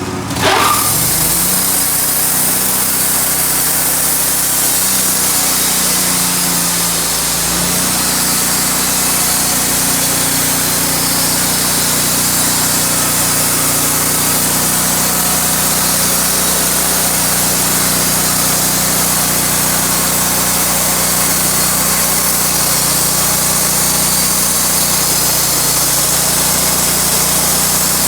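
Sawmill engine revving up sharply about half a second in, then running steadily at high speed under load as the mill saws a pecan log; its pitch shifts around seven to eight seconds in.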